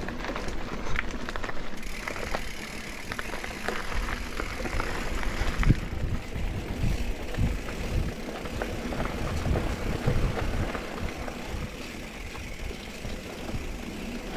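Mountain bike riding down a dirt trail: uneven rumbling buffets of wind on the camera's microphone, with scattered clicks and rattles from the bike.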